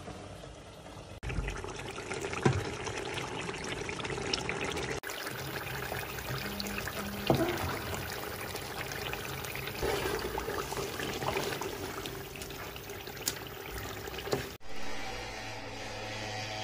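Water splashing and running in a steel cooking pot as rice for biryani is prepared, the sound changing abruptly a few times. Music comes in near the end.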